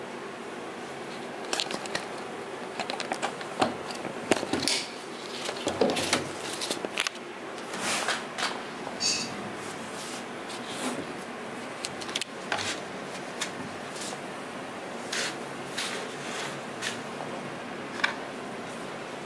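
Laptop keyboard keys tapped in irregular clicks and knocks over a steady hiss, densest in the first half, then only a few scattered taps.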